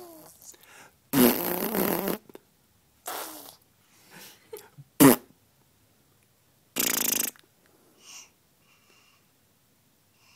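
A baby blowing wet raspberries, spluttering air and spit through her lips. Four separate buzzy bursts: a long one about a second in, a shorter one near three seconds, a brief loud one near five seconds, and another near seven seconds.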